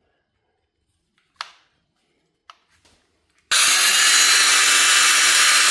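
A few handling knocks, then about three and a half seconds in a 12-volt battery mini chainsaw (Duratech) starts and runs steadily at full speed, its chain giving a loud, high whir.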